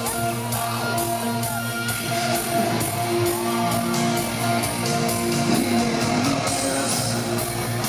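Live rock band playing an instrumental passage between sung lines: distorted electric guitars holding and bending notes over a steady drum beat.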